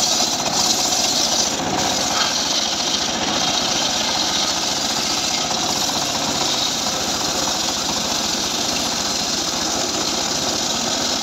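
Homemade engine-driven sawmill saw cutting through a johar log: a steady, loud hiss of the blade in the wood over the engine's even pulsing beat.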